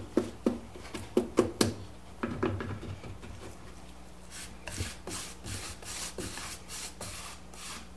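A few sharp knocks and taps as a paint can and brush are handled, then a paintbrush stroking white semi-gloss paint onto bare pine boards in short, quick strokes, about three a second.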